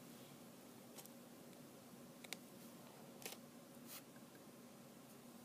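Near silence: faint room hum with a few soft, short clicks and rustles from a paintbrush and a small wooden clothespin being handled while glue is brushed on.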